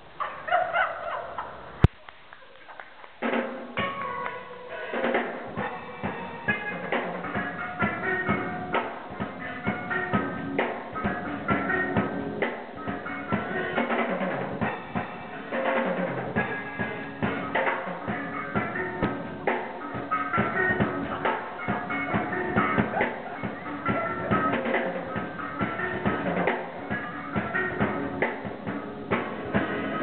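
A steel band's steel pans playing a fast, rhythmic tune with many ringing notes and percussion. A short burst of notes opens, then a sharp knock and a brief break about two seconds in, before the full band picks up about three seconds in and keeps playing.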